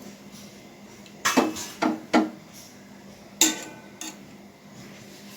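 A spoon clinks against a cooking pot four times, between about one and three and a half seconds in, while a herbal decoction of betel leaves, tulsi and spice powders is stirred.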